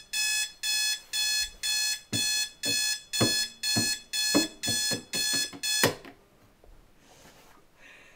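Electronic alarm clock beeping, about two high beeps a second. From about two seconds in there are knocks as a hand slaps around at it, and the beeping stops with a thud near six seconds in as it is switched off.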